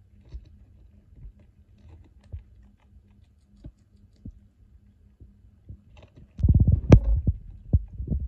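Richardson's ground squirrel chewing food held in its paws: small, scattered clicks and low rumbles, then a much louder cluster of rumbling and sharp clicks about six and a half seconds in.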